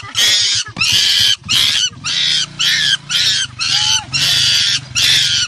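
Young monkey screaming in a string of about eight shrill screams, each under a second long, with short gaps between them.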